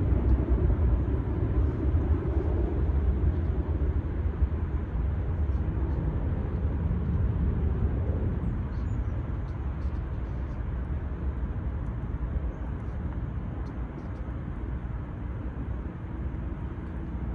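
Jet airliner's low rumble, slowly fading as it moves away.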